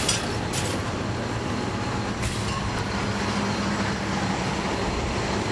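The Caterpillar C13 diesel engine of a NABI 416.15 transit bus runs steadily, heard from on board. Three short air hisses come through, one right at the start, one about half a second later and one about two seconds in.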